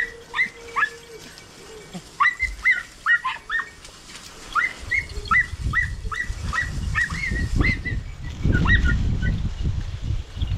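Podenco hunting dogs yelping in short, high calls, some in runs of about three a second, as they give tongue hunting rabbits in the reeds. A low rumble builds under them in the second half.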